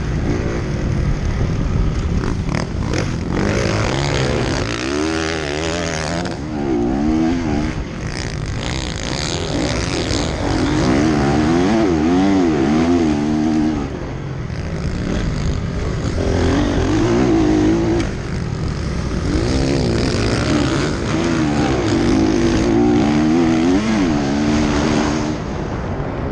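Motocross bikes racing, engines revving up and falling back repeatedly as they accelerate and shift.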